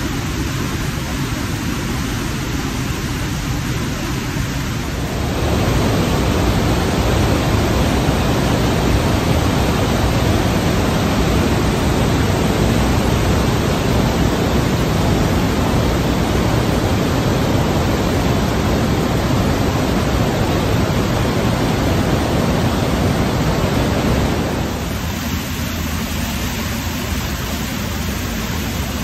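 Steady roar of a waterfall, loudest from about five seconds in until about twenty-four seconds in.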